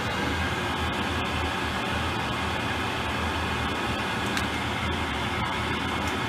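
Worcester Bosch 24i condensing gas boiler running, a steady rushing hum of its fan and burner while its leaking heat exchanger sends water out through the condensate trap.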